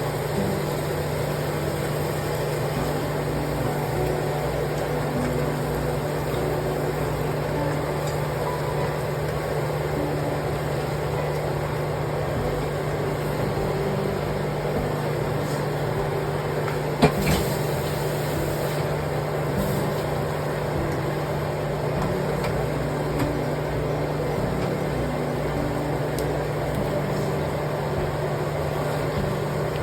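Steady mechanical hum with a noisy haze over it, unchanging throughout, and one sharp click about seventeen seconds in.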